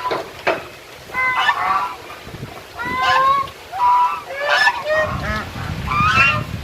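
Geese honking during a fight in the flock: a quick run of about six or seven loud, harsh honks, some bending up or down in pitch.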